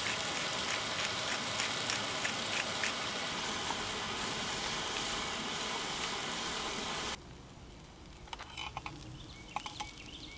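Sliced red onions sizzling in butter in a small camping pot, a steady sizzle with light crackles. About seven seconds in it drops suddenly to a much softer sizzle with a few small clicks.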